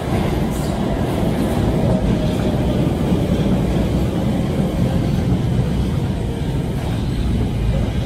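Brussels Metro train pulling into an underground station platform, passing close by with a steady rumble of wheels on rail and a faint whine that falls in pitch as it slows.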